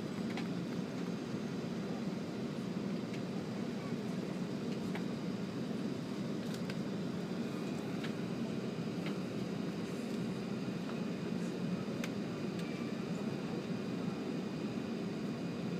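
Steady ventilation and air-conditioning hum inside the cabin of an E7 series Shinkansen standing at a station, with a few faint clicks.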